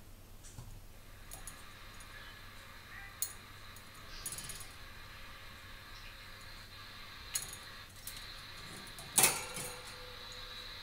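Budgie knocking a small cage mirror about against the wire bars: scattered sharp clinks and rattles, the loudest clatter about nine seconds in.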